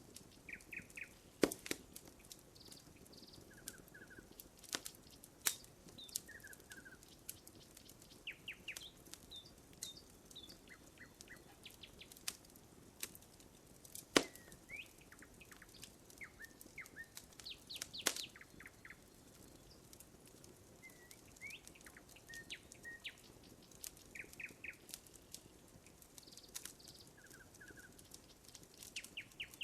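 Campfire wood burning with sharp crackles and scattered louder pops, under birds chirping in short repeated notes throughout.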